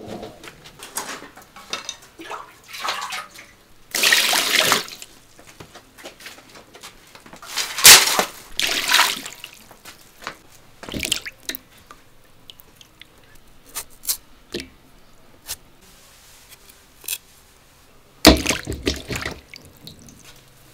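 Water splashing and dripping in a steel basin as potatoes are washed by hand, in a few separate bursts with quiet gaps and small clicks between them.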